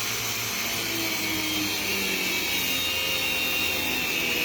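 Angle grinder with a cutting disc running under load, a steady high whine over grinding hiss.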